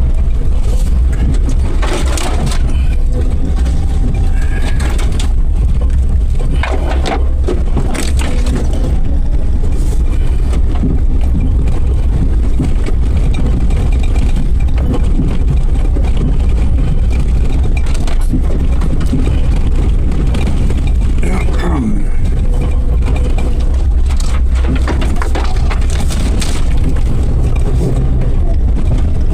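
Suzuki Jimny 4x4 driving over rough off-road ground: a steady low rumble of engine and drivetrain, with scattered knocks and rattles as the body jolts over bumps.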